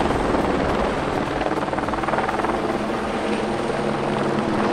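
Helicopter flying overhead with a load slung beneath it on a long line, its rotor and engine running steadily.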